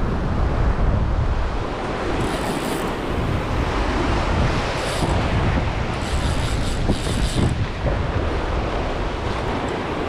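Sea swell breaking and washing over coastal rocks, with wind buffeting the microphone in a steady low rumble, and a few brief high hisses in between.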